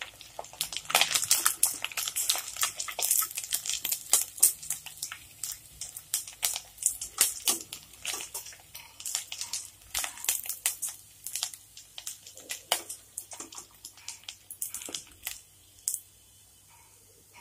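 Rice bondas deep-frying in hot oil in an aluminium kadai, the oil crackling and spitting in dense irregular pops, with now and then a metal slotted ladle knocking against the pan as the browned bondas are lifted out. The crackling thins out in the last few seconds as the pan empties.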